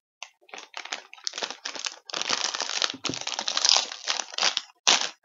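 Clear plastic snack wrapper crinkling and tearing as it is opened by hand, in irregular bursts of rustling.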